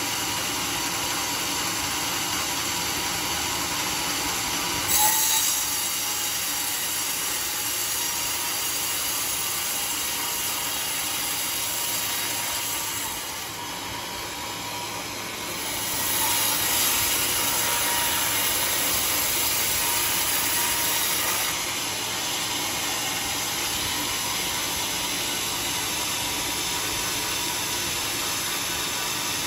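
Band sawmill cutting through a large teak log: a steady, noisy whine of the blade running in the wood. A short loud knock about five seconds in; the sound drops a little for a couple of seconds near the middle, then grows louder for about five seconds before settling back.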